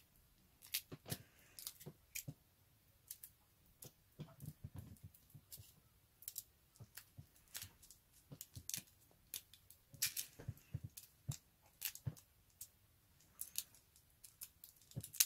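Foil wrapper of a Kinder Surprise chocolate egg being slowly peeled off by fingers: faint, irregular crinkles and crackles.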